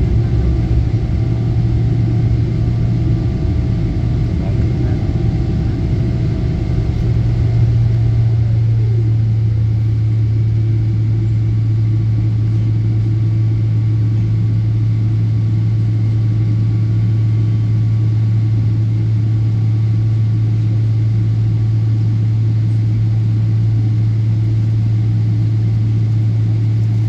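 Steady low drone of a jet airliner heard from inside the cabin during departure, with a strong constant hum. A higher tone glides down and fades about eight seconds in.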